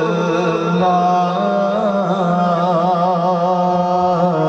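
A male voice chanting the salawat (durood) through a microphone and PA, drawing one syllable out into long wavering held notes with melismatic turns.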